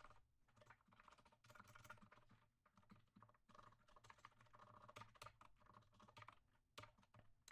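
Faint typing on a computer keyboard: an irregular run of quick key clicks.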